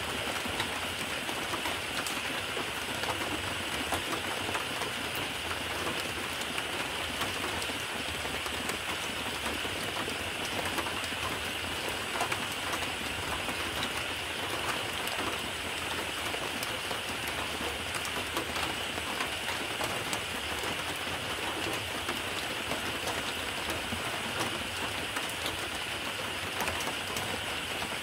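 Steady rain: an even hiss with a dense patter of small drop ticks, unchanging throughout.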